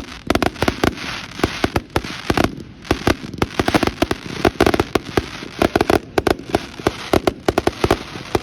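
Many fireworks exploding at once, a dense run of sharp bangs and crackling pops, several a second and never letting up, like a barrage.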